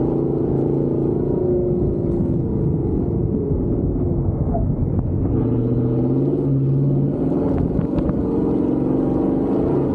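Gen 1 Ford F-150 Raptor's V8 running steadily while driving. Its note eases down about three seconds in and picks back up a couple of seconds later.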